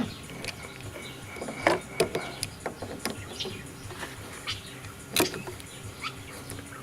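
Irregular clicks and light knocks of tools and parts being handled during fuel filter work, with a sharper knock about five seconds in.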